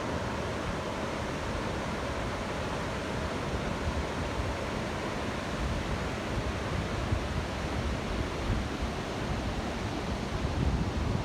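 Waterfall rushing in a steady, even roar of falling water. Low buffets of wind on the microphone grow stronger toward the end.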